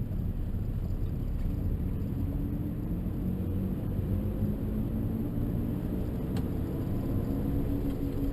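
A vehicle's low, steady rumble with a droning hum and a single sharp click about six seconds in.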